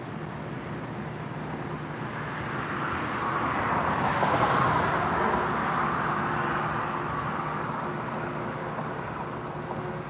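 A car driving past on the street: its tyre and engine noise swells over a few seconds, peaks about halfway through, then fades away.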